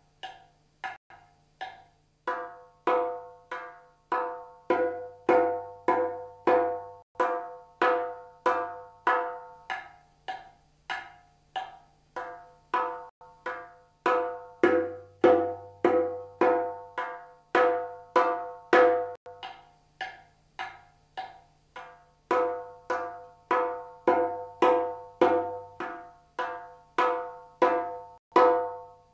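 Clay darbuka (goblet drum) played with the fingertips in an even two-strokes-a-second pattern. It cycles through dry kik strokes on the clay rim, bright high strokes at the edge of the head and fuller regular strokes slightly further in, the head ringing with a clear pitch after each stroke.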